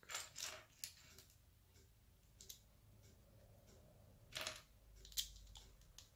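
Plastic LEGO pieces clicking and clattering against each other and the wooden tabletop as they are picked from a loose pile and pressed onto a model: several faint short clicks, the loudest about four and a half seconds in.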